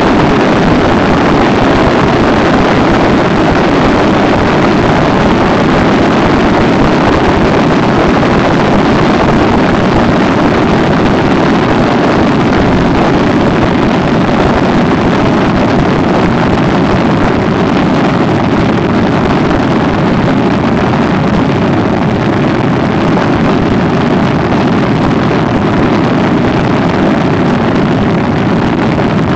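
Steady wind rush over the microphone mixed with the steady drone of a Honda ST1300 Pan European motorcycle's V4 engine cruising at an even speed.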